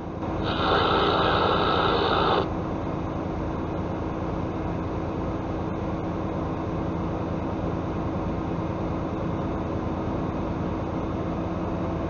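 Steady drone of a truck's diesel engine and road noise, heard inside the cab. About half a second in, a two-second burst of CB radio static rises over it, then cuts off.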